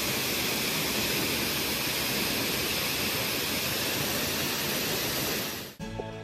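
Steady rush of a waterfall pouring into a pool. It cuts off suddenly near the end and music with drums begins.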